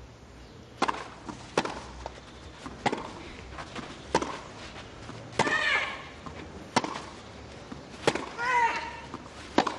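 Tennis rally on a clay court: sharp racket-on-ball strikes in a steady exchange, about one every second and a half. A player gives a long grunt on two of her shots, midway and near the end.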